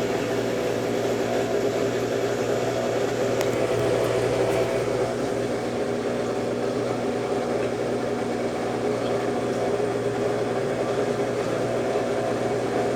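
Consul Facilite 10 kg top-loading washing machine running its wash stage with a load of bed linen and towels: a steady mechanical hum with a few constant tones.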